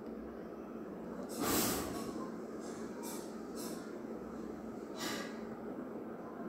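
A person breathing close to the microphone over faint background hiss: one louder exhale or sniff about a second and a half in, then several softer, shorter breaths.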